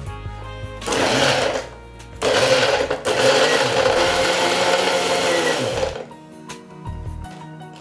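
Electric kitchen blender run in two bursts, a short one of about a second and then a longer one of nearly four seconds, blending mango with sugar and ice cream for a drink.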